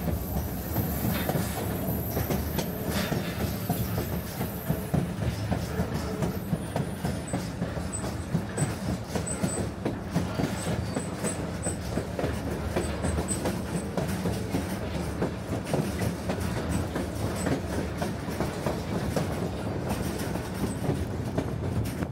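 Narrow-gauge passenger train cars rolling along the track, heard from on board: a steady low rumble with irregular clicks of the wheels running over the rail joints.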